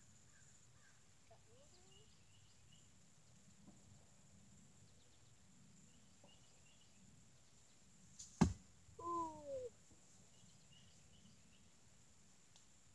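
An arrow striking the straw bale target close by: one sharp thud about eight seconds in, followed at once by a short falling cry. Faint bird chirps sound now and then over quiet outdoor background.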